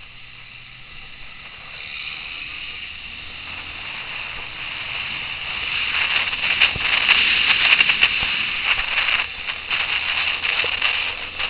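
Wind noise rushing over the microphone of a camera on a moving motorcycle. It grows louder as the bike picks up speed, then gusts and crackles irregularly, with a faint engine drone underneath at the start.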